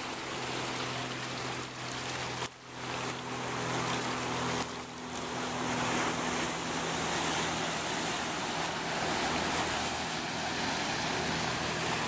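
Ocean surf washing over the rocks, a steady rushing noise, with a low steady motor hum underneath.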